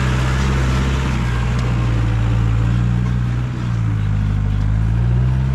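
Motorcycle engine running steadily, its pitch rising and falling slightly, with a rushing noise over it.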